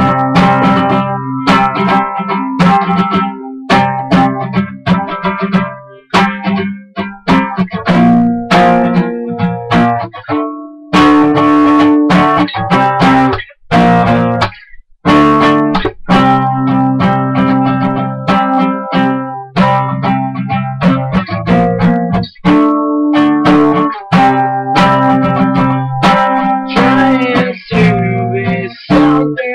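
Acoustic guitar strummed in steady chords, a song played through with brief breaks in the strumming about ten and fourteen seconds in.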